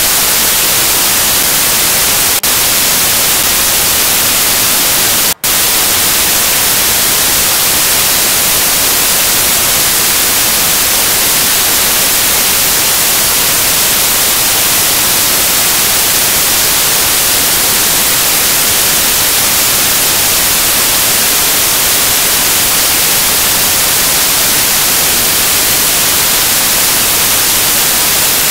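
Loud, steady static hiss, like white noise, brightest in the treble, from a broken or corrupted recording. It cuts out for an instant about five seconds in.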